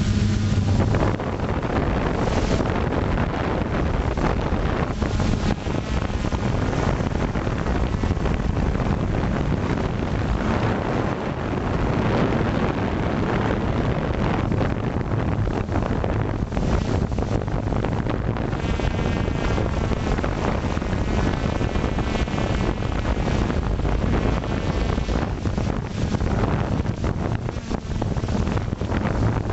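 A small FPV drone's electric motors and propellers running in flight, heard through heavy wind buffeting on the onboard camera's microphone. A thin higher whine shows through the noise for several seconds past the middle.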